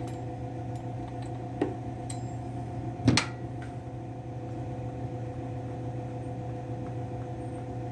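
A steady low hum runs throughout. Over it come a light click about one and a half seconds in and one sharp metal knock about three seconds in, as the chainsaw wrench is handled against the saw to get at the spark plug.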